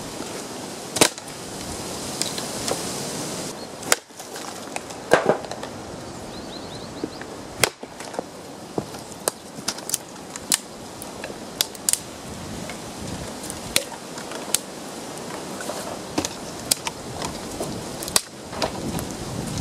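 Dry dead branches being snapped by hand over the knee: a series of sharp wooden cracks at irregular intervals, with one longer splintering crack about five seconds in.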